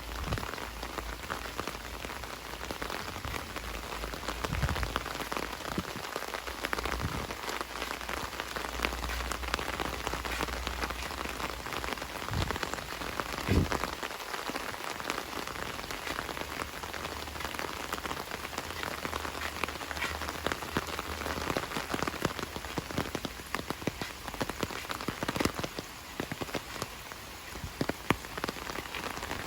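Heavy rain falling steadily, a dense patter of countless drops, with a few dull low thumps, the loudest about halfway through.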